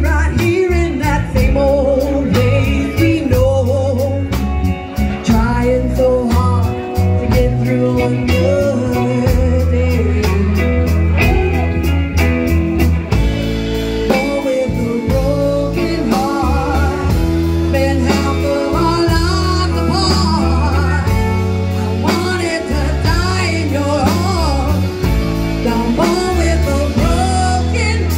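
Live band music: a woman singing lead into a handheld microphone over electric guitar, electric bass and drums, played loud and without a break.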